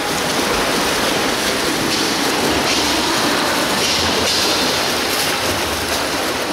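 Swimmers splashing as they race down the lanes of an indoor pool, a steady, unbroken wash of water noise.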